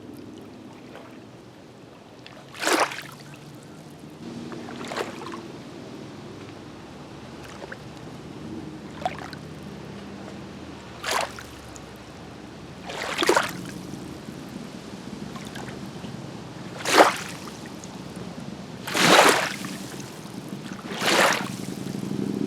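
Small waves of Green Bay lapping and splashing against the shore, in separate slaps every two seconds or so, some louder than others, over a steady low wash of water.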